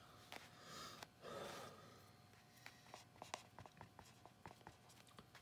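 Faint marker strokes on a worksheet: a series of light ticks and scratches as someone writes, from about halfway in, with a soft breath shortly before.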